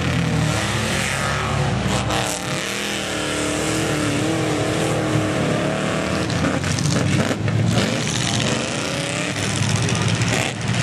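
Big mud-truck engines revving, their pitch rising and falling again and again as the trucks push through a deep mud hole, with a deep rumble in the first couple of seconds.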